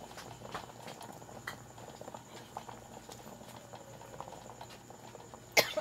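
Sauce simmering in a pan, with small scattered pops and ticks from the bubbling. A single sharp knock near the end.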